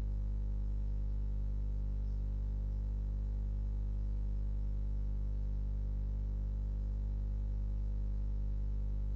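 Steady low electrical mains hum picked up by the recording, a constant buzz with a ladder of overtones and nothing else.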